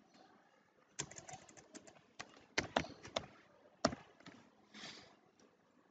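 Computer keyboard typing: a quick run of key clicks, then a few single key presses, as a word is retyped.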